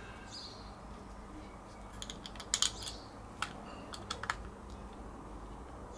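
A cluster of small sharp clicks and taps, the loudest about two and a half seconds in, from screws and the light unit's housing being handled and fitted during reassembly.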